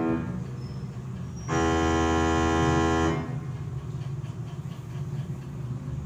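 Electronic toy sound effect: a single loud, steady, buzzy tone that starts about one and a half seconds in and holds for about a second and a half, over a low hum.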